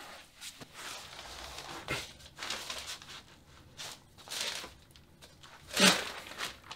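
Rustling and scuffing as a man with bound hands fumbles at the floor and his clothes. It comes as a run of short, scratchy bursts, the loudest about six seconds in.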